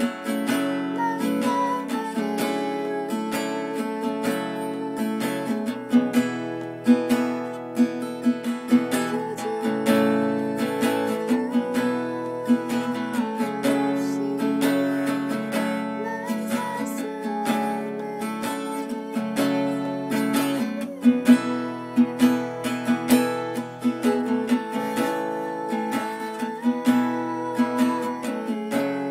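Acoustic guitar strummed in a steady rhythm, chords changing every few seconds.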